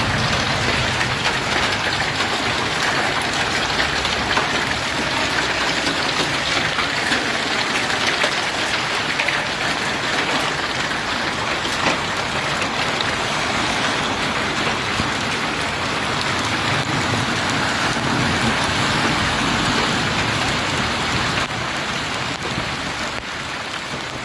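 Heavy rain falling hard on a surface during a thunderstorm: a loud, steady hiss of rain with scattered small impacts, easing slightly near the end.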